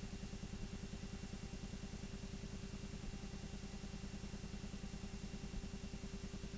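8mm film projector running, its mechanism clattering in a fast, even pulse of many beats a second over a steady hum and hiss.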